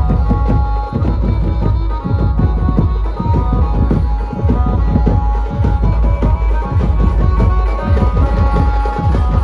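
Dhumal band playing loud live procession music through its sound system: a fast hand-drum and percussion rhythm with heavy bass under a sustained keyboard melody.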